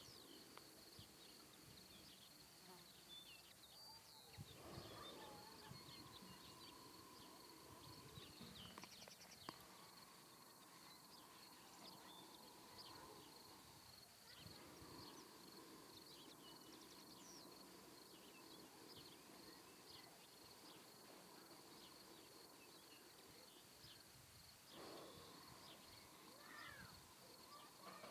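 Near silence: faint background ambience with a steady high-pitched whine and a few faint, brief chirps.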